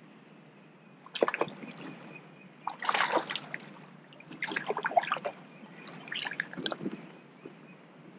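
A small hooked bass splashing at the water's surface in several short, irregular bursts as it is reeled in and lifted out.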